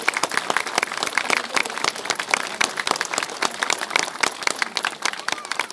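Crowd applauding: many hands clapping at once.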